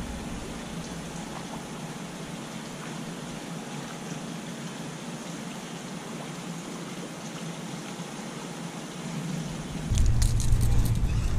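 Steady, even outdoor hiss while a topwater lure is worked. About ten seconds in, a few sharp clicks and a louder low rumble come from handling of the spinning rod and reel.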